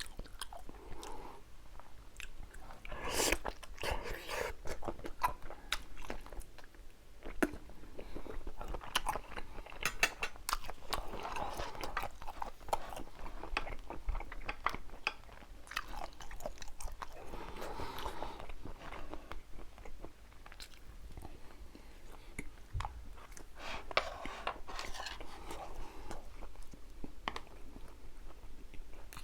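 Close-miked eating sounds: biting and chewing with crunches, wet mouth noises and sharp clicks, as in an ASMR mukbang of braised pollack and seafood.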